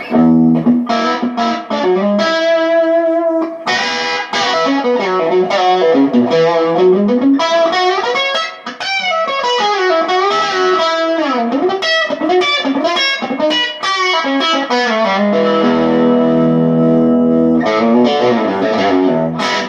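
Electric guitar, a Fender Custom Shop Telecaster with Texas Special pickups, played through an amp: single-note licks with string bends and quick runs, then held chords near the end that cut off suddenly.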